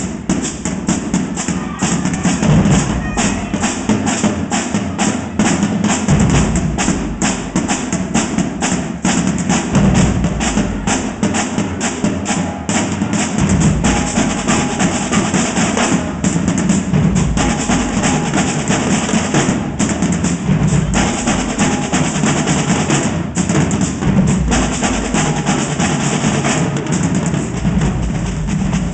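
Marching drumline playing: tenor drums, marching bass drums and cymbals in a fast, dense, unbroken stream of strokes.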